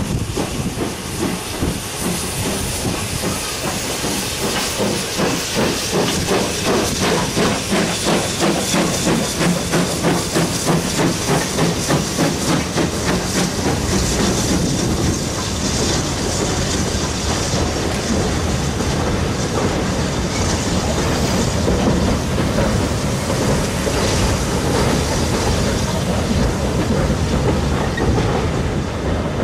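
BR Standard Class 2 2-6-0 steam locomotive No. 78018 passing with a train, its exhaust beating rhythmically with steam hissing. From about halfway through, the coaches roll past with their wheels clicking over the rail joints.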